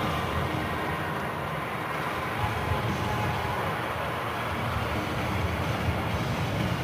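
Steady hubbub of an arena crowd around the fight cage, a dense wash of spectators' voices and movement with no single voice standing out.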